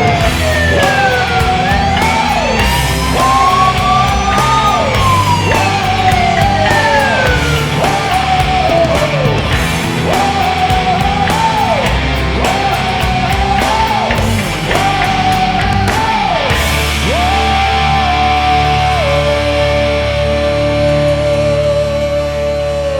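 Hard rock goal song played over the arena sound system, with shouted vocals and a repeating guitar riff that ends on a long held note near the end.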